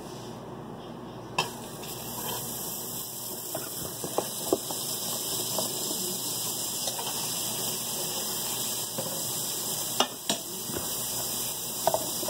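Butter hits a hot frying pan with a click about a second and a half in and sizzles steadily from then on. A few more clicks come later, as a utensil knocks against the pan.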